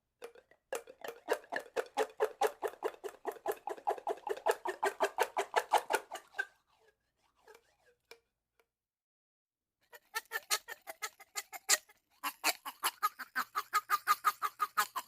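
A drinking straw squeaking in rapid, repeated squeaks, about five a second, in two long runs with a pause of about three seconds between them.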